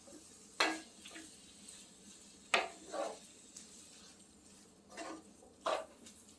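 Chicken being stir-fried in a hot skillet: a cooking utensil scrapes and knocks against the pan in five or so separate strokes, the loudest about two and a half seconds in, over a faint steady sizzle.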